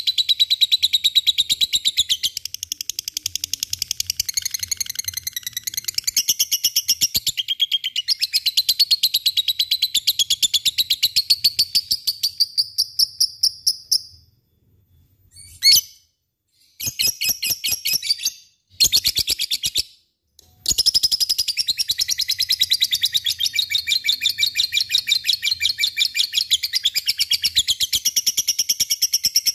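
Lovebird singing its long, rapid chattering song ("ngekek"), a fast run of high repeated notes. The run breaks off about 14 seconds in, comes back as a few short bursts with pauses, and resumes as a long run about 21 seconds in.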